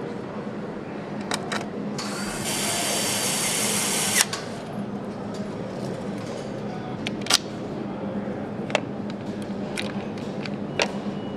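Factory assembly-line noise: a steady machinery hum, a power tool running for about two seconds near the start, and scattered sharp metallic clicks and knocks.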